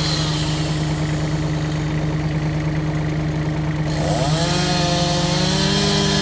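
Chainsaw engine running steadily, with its pitch shifting and wavering about four seconds in.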